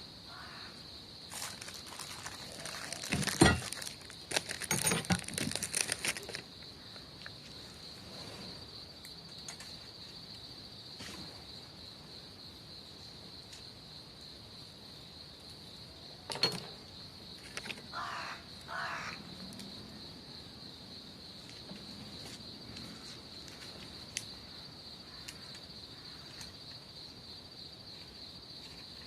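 Insects trilling in one steady, unbroken high tone. Sharp knocks and clatter sound about 2 to 6 seconds in, the loudest near three and a half seconds, and a few more knocks come a little after halfway.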